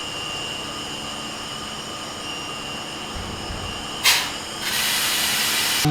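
Factory production-line noise: steady machine noise with a high tone, a brief low rumble, then a sharp hiss about four seconds in and a loud continuous hiss in the last second or so.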